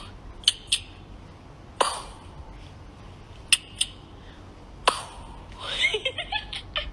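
A string of sharp clicks and knocks: two pairs of quick clicks, two heavier knocks with a short ring, and a quick patter of small sounds near the end.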